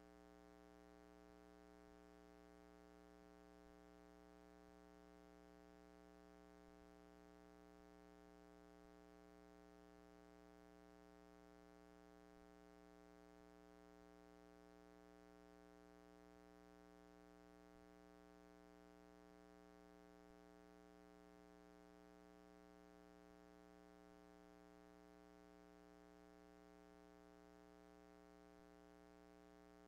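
Near silence, with a faint, unchanging hum.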